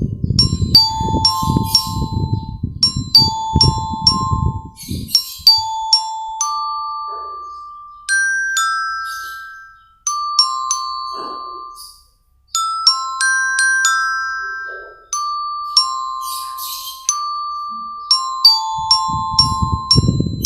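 A melody played on a belira (bell lyre, a marching glockenspiel), its struck metal bars ringing out note by note with long decays; some notes are held and left to fade. A low, rhythmic backing accompanies the bells for the first five seconds and returns near the end.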